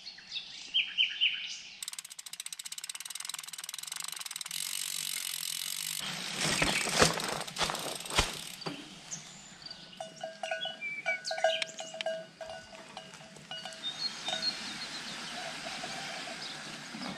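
A mountain bike's freewheel hub ticks rapidly as the bike coasts. Then come several loud knocks and clatter as the tyres and frame ride over rock slabs, followed by short, high bird chirps.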